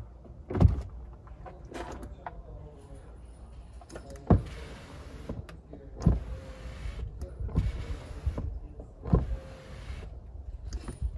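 Electric seat motors in a 2019 Range Rover's cargo area whirring in several short runs of about a second each, most starting with a thump.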